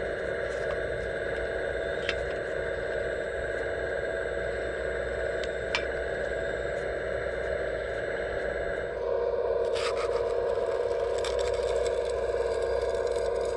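Steady whine of a radio-controlled hydraulic excavator model's pump running, with a couple of small knocks. About nine seconds in it gets louder, and a burst of scraping and crackling follows.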